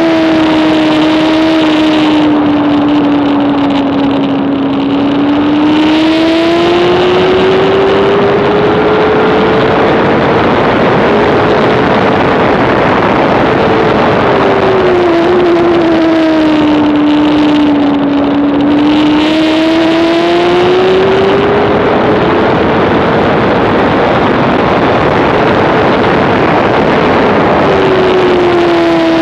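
Onboard sound of a Honda CBR600RR's inline-four racing engine at high revs, its note sliding down and then climbing back up twice, in short steps as it rises, over heavy wind rush on the microphone. The wind rush thins twice, where the engine note is at its lowest.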